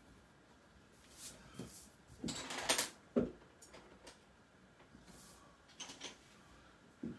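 Colored pencils and pens handled on a hard desktop: a few light clicks, a rough scrape about two seconds in and a low knock just after, as pencils are set down and picked through.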